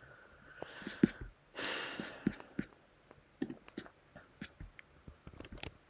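Faint, scattered clicks and taps from computer mouse or trackpad navigation, with a short breathy rustle about two seconds in.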